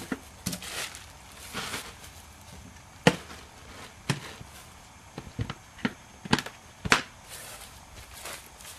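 Handling of chemical containers and their caps: about ten sharp, irregular clicks and knocks, the loudest about three and seven seconds in, with a soft rustle between about half a second and two seconds in.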